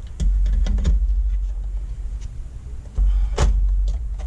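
Handling noise as small wire connectors and monitor parts are worked by hand: a low rumble with several clicks and knocks, the sharpest about a second in and again past three seconds.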